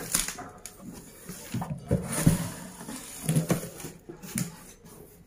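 Cardboard carton flaps being folded back and pressed flat by hand, rustling and scraping in irregular bursts.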